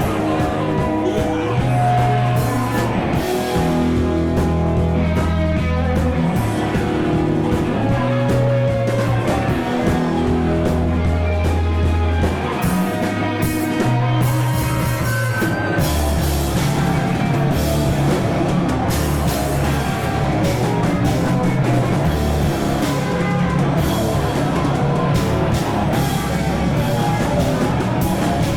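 Rock band playing live: bass, electric guitar and drum kit, with held bass notes under steady drumming. About halfway through the music shifts into a denser, heavier section.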